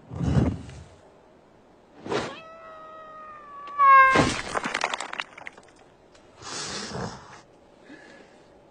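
Cartoon sound effects: a low thud, a quick whoosh, then a long wailing cry that jumps up in pitch at the end and breaks off into a loud crash and clatter as a character is thrown through the air; a shorter rustling burst follows near the end.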